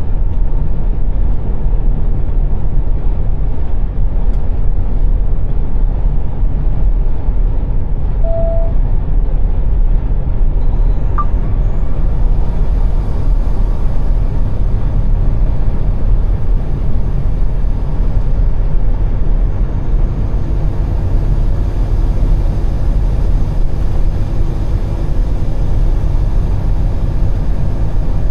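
Semi-truck driving: steady engine and road rumble.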